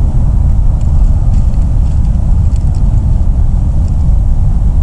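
Wind buffeting a ground-level action camera's microphone in an open field: a loud, steady, low rumble.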